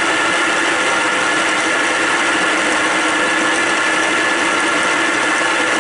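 Vertical milling machine running with an end mill cutting along the edge of a metal plate: a steady, unbroken machining whine with a few constant tones.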